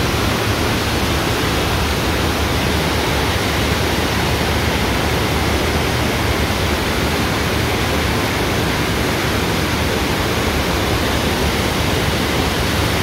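Steady rush of water streaming at speed over the ride surface of a standing-wave surf simulator, an even, loud rushing noise with no let-up.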